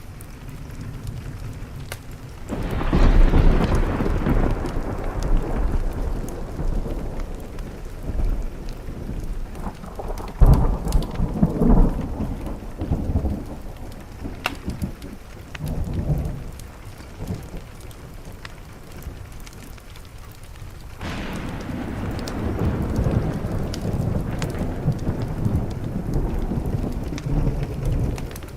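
Thunder rolling over steady rain. A long peal breaks suddenly about two and a half seconds in and rumbles on for several seconds. Sharper cracks come around ten to twelve seconds in, and another long roll starts about twenty-one seconds in and runs on near the end.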